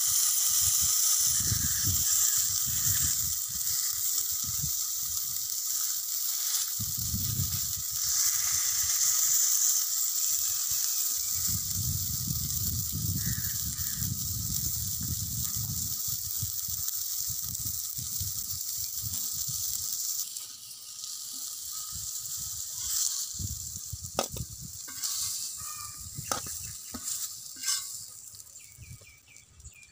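Masala-coated whole fish sizzling in oil on a flat griddle: a steady high hiss that thins out after about twenty seconds. Near the end come several sharp taps and scrapes of a metal spatula on the griddle as the fish are lifted off.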